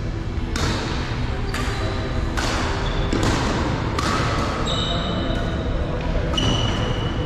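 Badminton rally: racket strikes on a shuttlecock about once a second, each followed by the hall's reverberation, with sneakers squeaking on the court floor twice in the second half.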